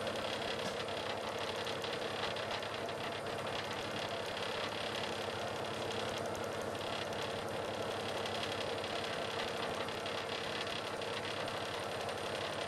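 Boat engine running steadily under way, a constant mechanical chugging with a dense, even beat.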